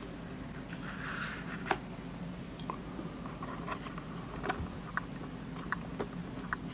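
Faint, scattered small clicks and light handling noises, about a dozen spread irregularly, over a steady low hum of room or equipment noise.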